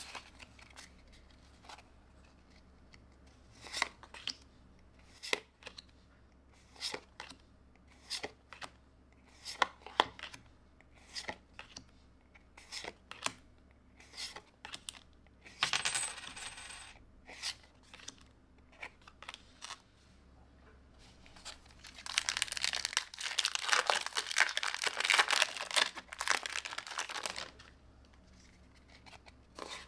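Pokémon trading cards being handled one by one, each card slid and flicked to the front of the stack with a short sharp snap, coming every second or so at an uneven pace. Near the middle there is a brief papery rustle of cards sliding against each other, and in the later part a louder rustle lasting several seconds.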